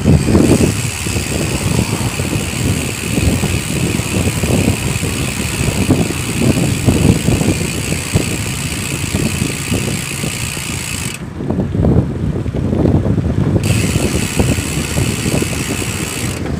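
Sagmit V12 bicycle rear hub freewheeling as the wheel spins, its ratchet giving a continuous high buzz that stops for about two seconds about eleven seconds in, then resumes. A low rumble runs underneath.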